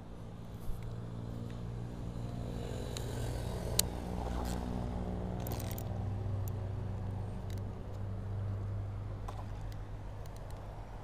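A motor vehicle's engine running with a steady low hum that swells over several seconds and then eases off. Two sharp clicks stand out, about a second in and again near four seconds.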